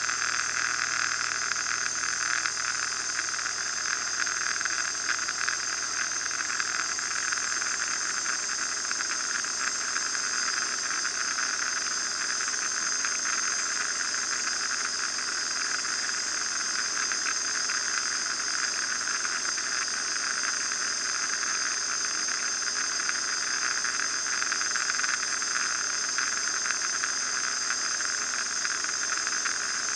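Steady cabin noise of an RV-9A light aircraft in cruise flight: engine, propeller and airflow blend into an even, unchanging hiss.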